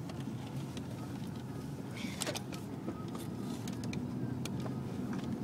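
Steady low road rumble of a moving car heard from inside the cabin, with a few light clicks and a brief rustle about two seconds in.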